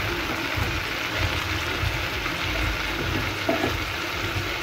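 Chicken pieces and sliced onions sizzling steadily in a metal pot while a wooden spoon stirs them.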